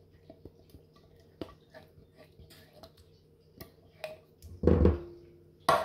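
Faint scattered clicks and ticks of kitchen items being handled, then a heavy thump about four and a half seconds in and a sharp knock near the end.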